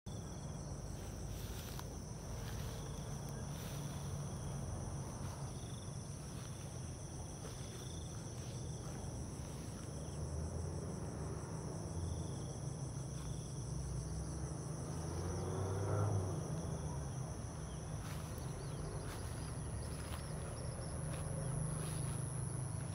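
Insects, crickets among them, trilling steadily as two high, unbroken tones, over a low rumble.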